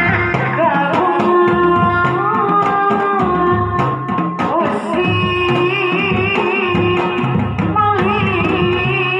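Sundanese reak ensemble music: large cylindrical reak drums beat a steady rhythm under a wavering, sustained melody line that is sung or played on a reed.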